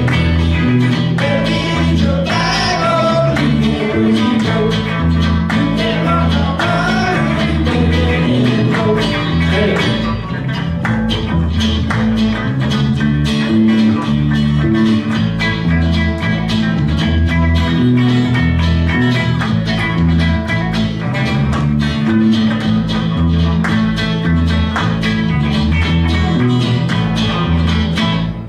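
Small live gospel band playing: acoustic guitar strummed, electric lead guitar and electric bass, with singing in the first part.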